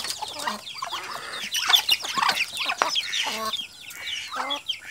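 A flock of chickens clucking and chirping in many short, overlapping calls as they crowd around to be fed corn.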